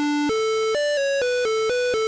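PC speaker beeping out a one-note-at-a-time melody in square-wave tones, about eight short notes in two seconds with brief breaks between them.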